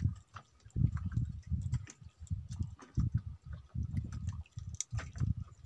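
Irregular low thumps and scattered light clicks as a freshly caught dalagang bukid (yellowtail fusilier) is gripped and unhooked by hand.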